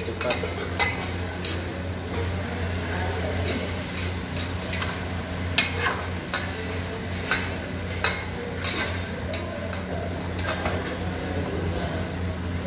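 Metal ladle stirring vegetables in an aluminium pot, scraping and knocking against the sides in irregular clinks, over a steady low hum.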